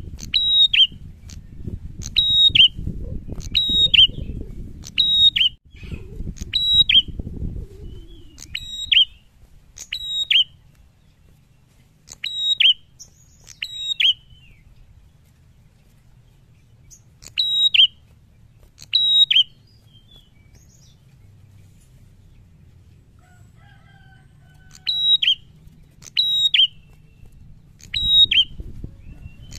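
Caged prenjak calling, a loud, sharp, repeated chirp: a run of about two calls a second, then calls in pairs and threes with pauses between. A low rumble runs underneath for the first several seconds and returns near the end.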